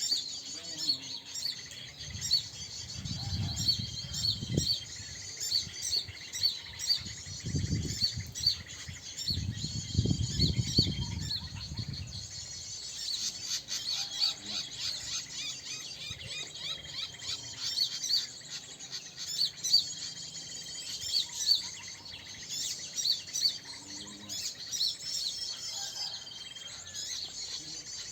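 Many small songbirds chirping and twittering densely and without a break, with short high trills repeating through it. A low rumble comes and goes several times in the first half.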